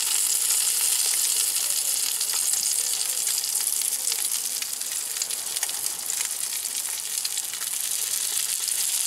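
Fluke (summer flounder) fillets sizzling as they fry in a cast-iron skillet: a steady hiss with fine crackling throughout.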